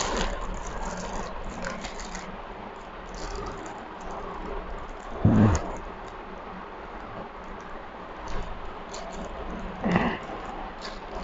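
Aluminium foil wrapper crinkling and crackling as it is unfolded by hand, with two louder bumps, about five seconds in and near the end.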